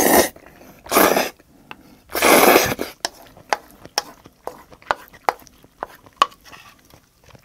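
A person slurping food off chopsticks in three loud bursts within the first three seconds, then chewing with many short, wet mouth clicks.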